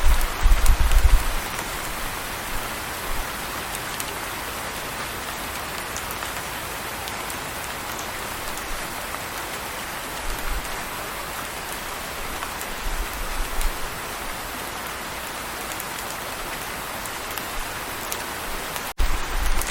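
Steady rain falling, a dense even hiss of drops on surfaces, with bursts of deep low rumble in the first second or so and again briefly about halfway through.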